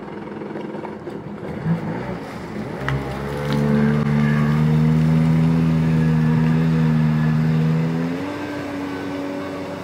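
Jet ski engine running, rising in pitch and getting louder about three seconds in, then holding a steady speed before its pitch shifts again near the end.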